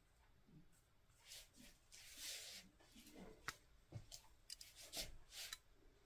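Faint swishing and scratching of an ink-wash painting brush dragged across paper in short strokes, with a few light clicks and taps in the second half.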